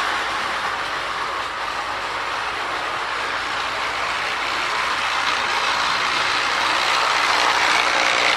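Marx pre-war Commodore Vanderbilt toy train locomotive running on its track, its pre-war electric motor and wheels making a steady running noise that grows louder toward the end.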